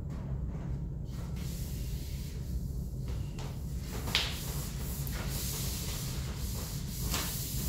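A disinfectant wipe rubbing over a clinical trolley's side panel in repeated wiping strokes, with one brief sharp sound about four seconds in, over a steady low hum.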